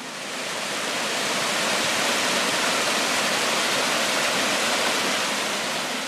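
Small woodland waterfall on a brook: steady rushing of water cascading over rocks, fading in over the first second or two and fading out near the end.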